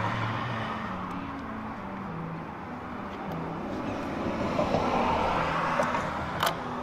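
Road traffic going by: the noise of passing cars swells and fades twice, with a sharp click near the end.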